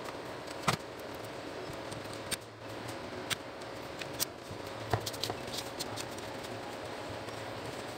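Scattered light clicks and taps of a screwdriver and the metal frame of an Epson TM-U220 printer mechanism being handled during reassembly, over a steady faint hum.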